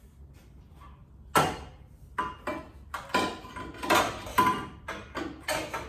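Metal exhaust header tube clanking and knocking against the chassis and neighbouring tubes as it is worked into place. There is one sharp knock about a second and a half in, then a quick run of ringing metallic clanks.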